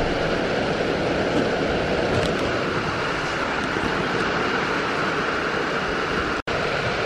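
Steady rain on the goat house roof, an even hiss with no let-up, cut off for an instant about six and a half seconds in.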